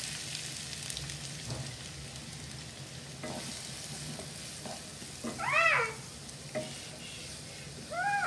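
Chopped onions frying in hot oil in a non-stick kadai: a steady sizzle with light scrapes of a spatula stirring them. Two short high-pitched wavering calls, about five and eight seconds in, stand out above the frying, the first the loudest.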